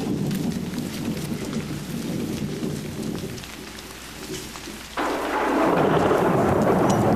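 Thunderstorm: a low rumble of thunder with rain, then about five seconds in a sudden, much louder crash that runs on as heavy rushing noise.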